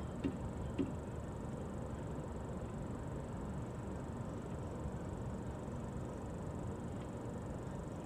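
Steady low rumble of a running vehicle, with two short clicks in the first second and a faint one near the end from hand-tool work at the car's wheel.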